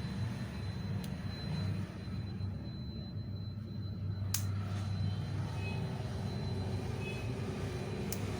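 A steady low hum with a few sharp, light clicks, heard about a second in, after about four seconds and near the end. The clicks come from a tool working at the edge of a smartphone's heat-softened back glass to open a gap.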